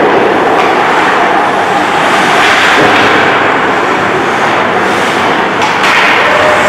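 Ice hockey play echoing in a rink: a loud, steady wash of noise with a sharp knock about half a second in and another near the end, the sound of sticks and puck hitting the boards.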